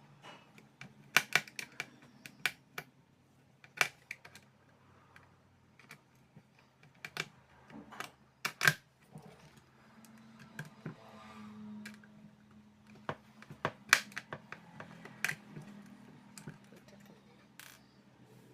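Irregular sharp clicks and taps of small tools and parts being handled while working on an LED flood light, some in quick clusters, over a faint steady hum.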